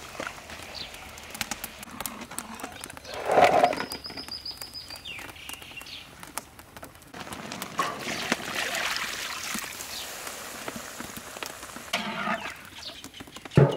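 Metal ladle scraping and knocking against a large iron wok while braised pork in sauce is stirred, over a sizzling hiss. A louder clatter comes about three and a half seconds in, and a short bird call follows.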